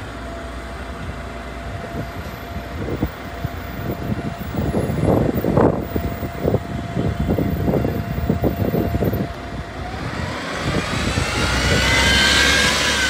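Road traffic, with a bus driving past. Several seconds of irregular knocks and clatter are followed near the end by a whine that rises in pitch and grows louder as the vehicle comes close.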